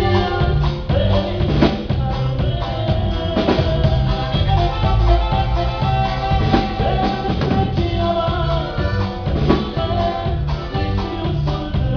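A live band playing a song at a sound check, with a drum kit keeping a steady beat under bass and sustained melody lines.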